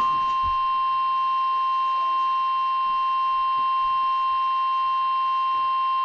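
NOAA Weather Radio warning alarm tone, a single 1050 Hz tone held steady and unbroken, received on a weather radio. It is the alert that a severe thunderstorm warning message is about to be broadcast.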